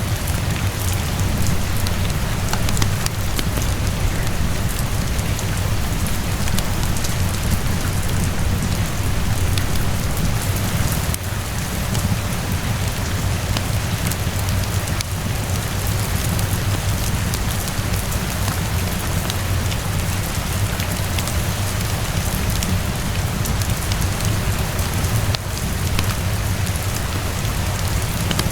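Steady rainfall on a surface, with many fine sharp ticks of drops and fireplace crackle over a constant low rumble.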